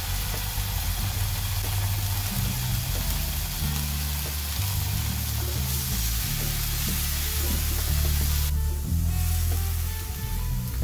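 Background music with a bass line of held notes, over the sizzle of a chicken breast fillet searing in a nonstick frying pan. The sizzle drops off about eight seconds in.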